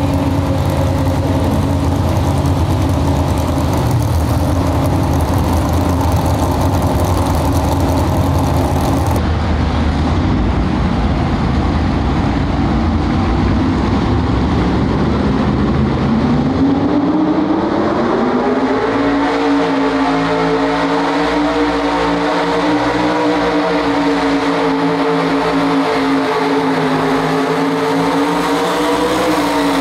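Pro Street two-wheel-drive Ford pickup pulling trucks. First a truck's engine runs steadily while hooked to the weight sled; then another truck's engine pulls the sled at full throttle, its pitch climbing a little over halfway through and then holding high and steady.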